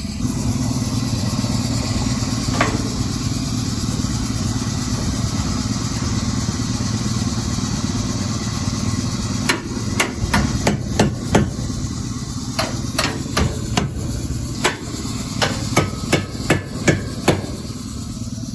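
A run of irregular hammer taps begins about halfway through, over a low, steady engine drone.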